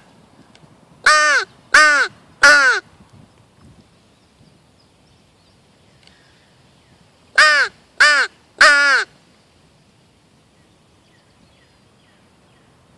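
Turkey hunter's mouth-blown crow locator call sounding two series of three loud, short caws, the second series about six seconds after the first.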